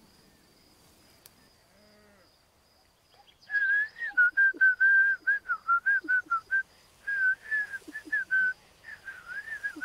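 A person whistling a tune. It starts about three and a half seconds in after a quiet stretch, with many short notes that step up and down in a high, clear pitch.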